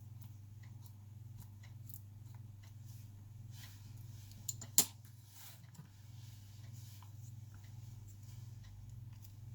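Scattered small clicks and taps from handling a phone and small repair tools, over a steady low hum, with one sharp click about halfway through.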